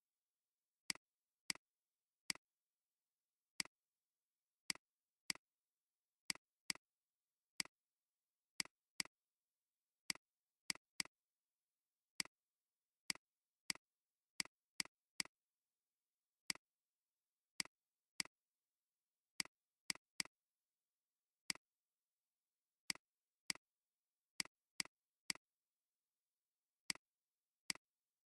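Computer mouse clicking, one sharp single click at a time at uneven gaps, about thirty clicks in all with dead silence between. These are the clicks that place anchor points while a path is traced with Photoshop's Pen tool.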